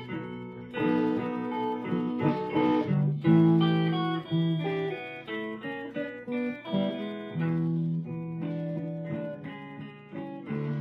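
Slow blues instrumental led by guitar, playing plucked notes and strummed chords.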